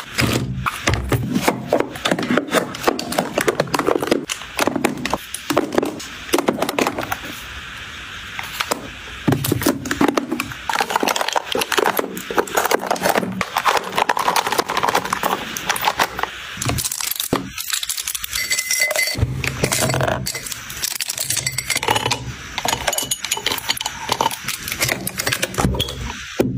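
Plastic and glass makeup containers clicking, tapping and clinking as they are handled and set down one after another, many small knocks close together.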